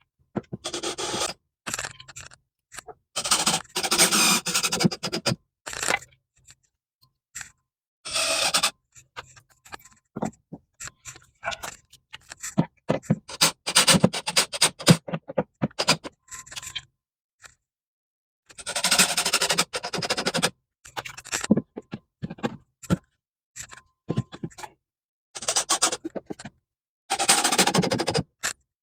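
Drywall patching work: repeated bursts of scraping and clattering from wood and drywall being handled and worked, broken by short silences, with a run of quick clicks and knocks in the middle.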